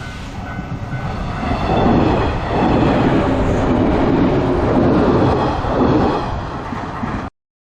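A train passing close by on the rails, a loud, steady rush of wheel and running noise that swells for several seconds and then eases. It cuts off suddenly near the end.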